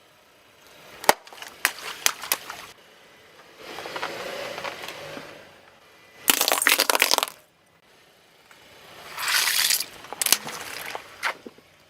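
Brittle objects being crushed under a car tyre: a run of sharp cracks and snaps, then two loud crunching bursts about a second long, with more snaps near the end.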